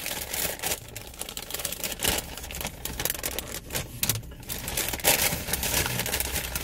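Paper sandwich wrapper being unfolded and handled, rustling and crinkling with irregular crackles.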